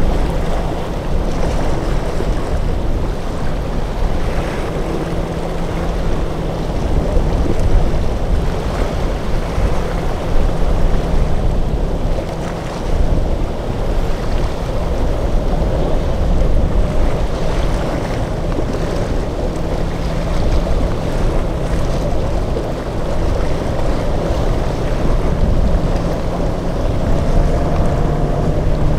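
Boat engines running through rough inlet water, mixed with waves breaking and wind buffeting the microphone; near the end one engine's steady drone stands out.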